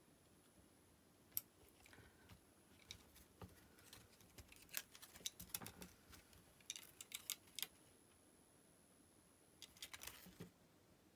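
Scattered small clicks and taps of plastic and metal parts of a Sony hard-disk Walkman being handled and taken apart, coming in clusters of quick clicks around the middle and again near the end.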